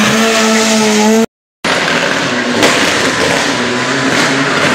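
A rally car's engine is held at steady high revs, then the sound drops out abruptly for a moment about a second in. Afterwards a Mitsubishi Lancer Evolution rally car passes close with a rougher, lower engine note and a couple of sharp knocks.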